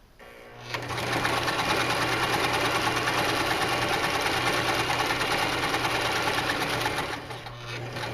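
Janome HD1000 sewing machine stitching at a steady fast speed, running up about a second in and slowing near the end.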